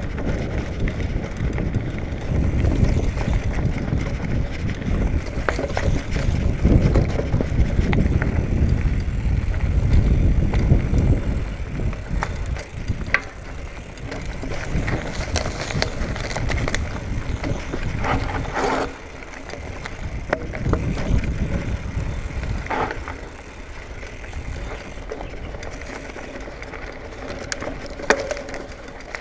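2019 Marin Bobcat Trail 5 hardtail mountain bike riding down a dirt trail covered in dry leaves: a steady rumble of tyres on dirt and leaf litter, heaviest in the first dozen seconds and easing later. Sharp clicks and rattles from the bike come through now and then.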